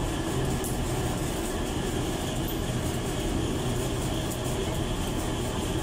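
A steady low mechanical hum under a constant rushing noise, with a few faint light ticks.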